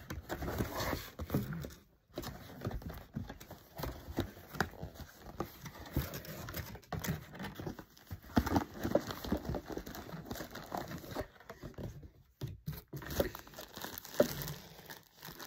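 Paper and card packaging rustling and crinkling as a box is unpacked by hand, in irregular handling noises with a couple of short pauses.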